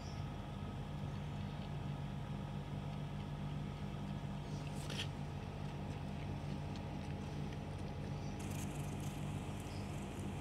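A steady low hum, with a short scraping rustle about halfway through and soft rustling near the end.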